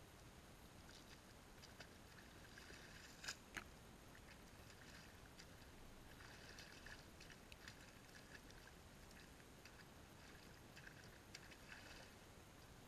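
Faint sloshing and splashing of muddy water as a person moves in a shallow riverbed pool, coming in a few short stretches, with two sharp little splashes about three seconds in.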